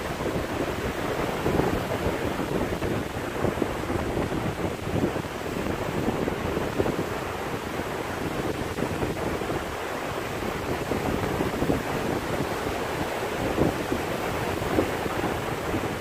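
Small sea waves breaking and washing up a sandy beach in steady, continuous surf.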